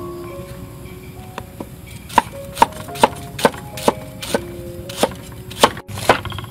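Cleaver chopping through food onto a wooden chopping block: a run of sharp knocks, about two a second, starting about two seconds in, over soft background music.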